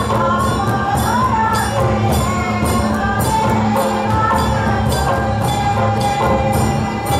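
Live Santali folk dance music: drums keep a steady, even beat under a wavering melody line.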